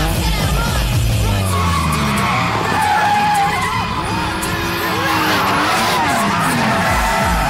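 Cars drifting: engines revving up and down and tyres squealing with a wavering pitch, mixed with loud film music.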